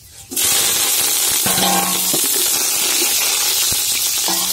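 Fresh curry leaves hitting hot oil in an aluminium pot, where fenugreek seeds and dried red chillies are frying, and sizzling loudly: the tempering stage of a curry. The sizzle starts suddenly about a third of a second in and then keeps on steadily.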